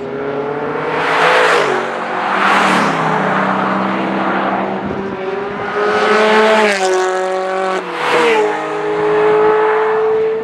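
Sports cars, among them an Audi R8 and a Ferrari 360 Spider, accelerating hard past one after another. Their engine notes drop sharply in pitch several times as they go by, with two loud swells of rushing noise as they pass close.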